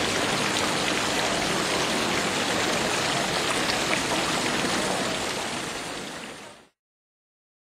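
Steady rain falling and splashing on a wet stone square, a dense even hiss of water. It fades out near the end and stops.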